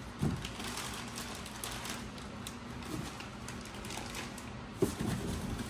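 Plastic wrapping rustling and cardboard packing being handled as patient-lift parts are unpacked from a box, with scattered small clicks and a knock about a third of a second in and another near the end.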